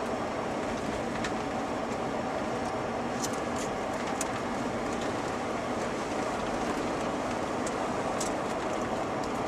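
Steady road and tyre noise of a truck driving on a wet road, heard from inside the cab, with a few light ticks scattered through it.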